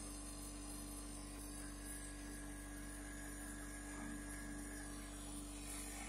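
A steady low electrical hum, unchanging throughout, with no other distinct sound.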